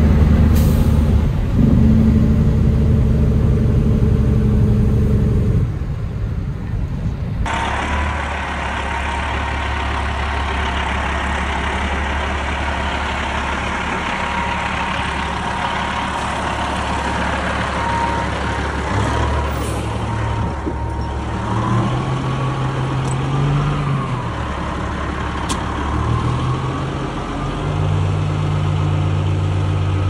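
Peterbilt dump truck's diesel engine running, heard from the cab for the first several seconds. It then runs outside with a thin steady whine while the dump body is raised, the engine speed stepping up several times in the second half.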